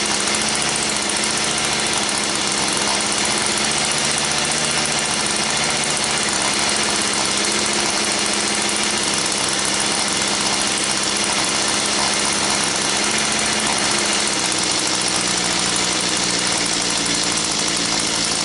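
Small gasoline engine running steadily at a fast, even speed, its pitch shifting a little now and then.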